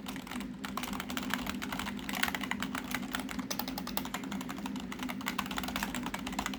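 Rapid typing on an old computer keyboard, a fast, dense run of key clicks mashed with no pause.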